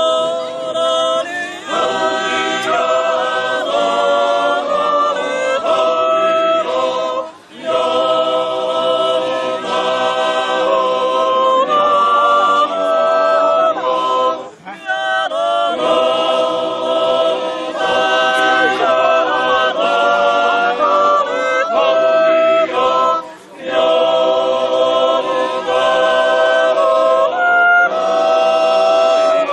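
Background music: an a cappella choir singing slow, held chords, with three short breaks between phrases.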